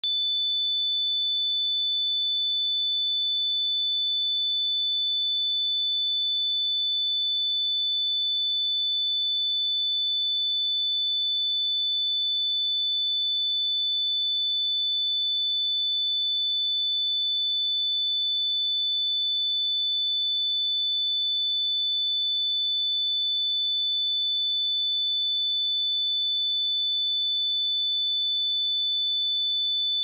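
Steady 3507 Hz sine-wave test tone, a single high pure pitch held at constant level without change.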